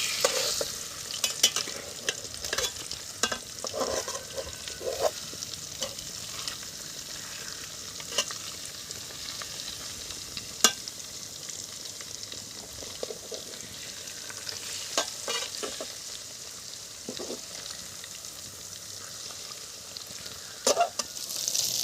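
Masala-coated fish frying in hot oil in a pan: a steady sizzle, with scattered clicks and scrapes of a spatula as the pieces are turned over, and a few louder knocks.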